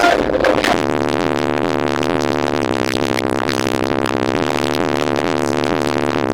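Loud music played through car audio systems, with steady low bass tones under a dense, warbling, distorted upper texture.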